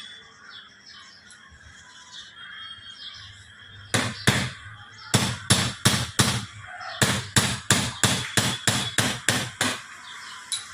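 Hammer knocking in quick runs, about fourteen sharp strikes starting about four seconds in: a new bushing being driven into the base of a mixer-grinder jar to replace one whose hole has worn wide.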